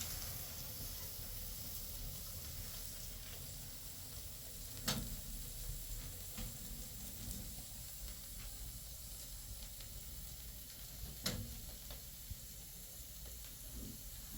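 Steady hissing noise, broken by two sharp clicks: one about five seconds in, the other about eleven seconds in.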